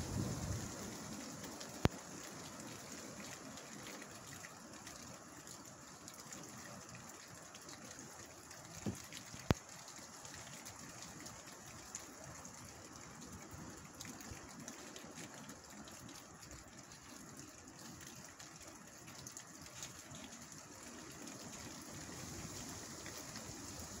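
Strong wind rushing through leafy trees in a steady hiss, with gusts buffeting the microphone that are loudest at the start and build again near the end. A couple of sharp clicks stand out, about two seconds in and again near the middle.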